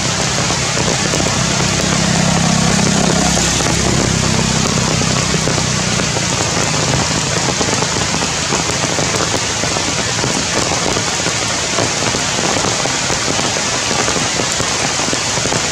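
Heavy rain falling steadily on tree foliage, a dense, even hiss. A low rumble rises under it in the first few seconds and then fades.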